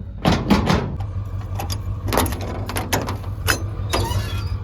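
A series of sharp clicks and knocks from equipment being handled, over a low steady engine hum that starts about a second in.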